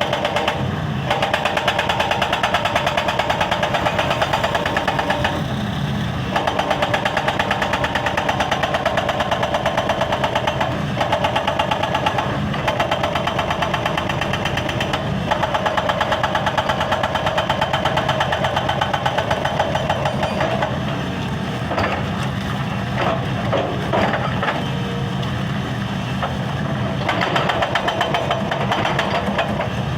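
Excavator-mounted hydraulic rock breaker hammering stone in rapid repeated blows, in long runs broken by short pauses, with the machine's diesel engine running underneath. About two-thirds through the hammering stops for several seconds, leaving the engine and a few scattered knocks, then starts again near the end.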